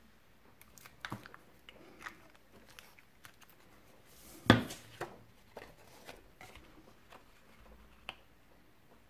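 Paper and cardstock being handled by hand on a craft mat: faint rustles and light taps as a glued sheet of designer paper is laid on the card and smoothed down, with one sharper knock about halfway through.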